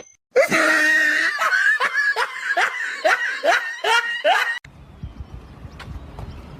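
A person laughing hard, a quick string of repeated pulses for about four seconds that cuts off abruptly.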